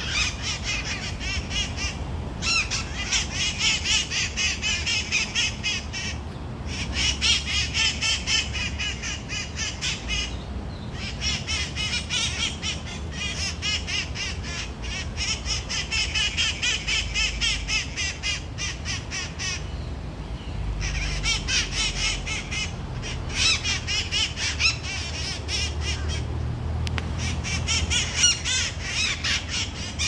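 A flock of small parrots calling: a dense run of rapid, shrill, chattering screeches from many birds at once, pausing briefly every few seconds.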